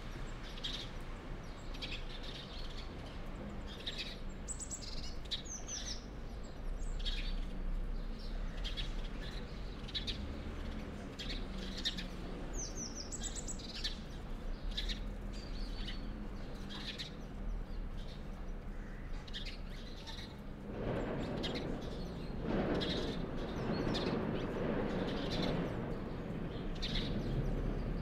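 Small songbirds chirping in the bare trees: many short, high chirps in quick succession, with a few higher notes now and then. A broad rushing noise swells up beneath them about three-quarters of the way through.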